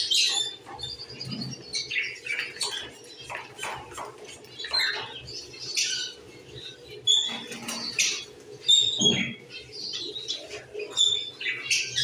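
Caged aviary birds, budgerigars among them, chirping and squawking in many short high calls, with bursts of wing fluttering.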